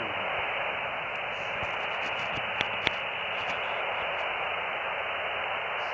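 Steady hiss of receiver static from a software-defined radio's SSB demodulator, played through a tablet speaker, with two short clicks close together about halfway through. No sliding Doppler tone from a Starlink beacon shows in the noise.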